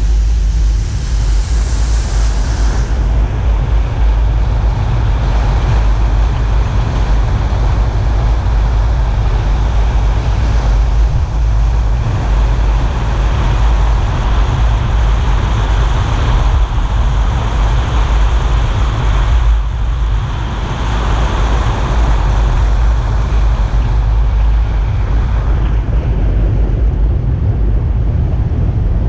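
A car driving on a wet road: a steady low rumble of wind on the microphone over tyre hiss on wet tarmac and engine noise.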